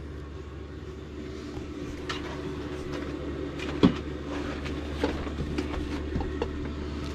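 Steady low mechanical hum of a running motor, with a few scattered clicks and a sharper knock about four seconds in.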